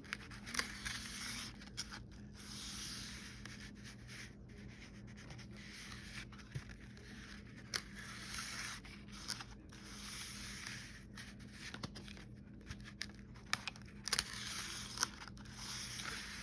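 Cardstock sliding and scraping against paper in repeated swishing strokes, with small sharp clicks and taps in between, as a paper waterfall mechanism is pulled and pushed back; it is still sticking on leftover glue.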